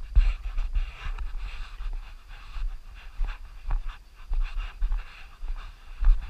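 Heavy, rhythmic panting of a person breathing hard while hiking, a breath about every half second, over low rumbling thumps of wind and camera movement.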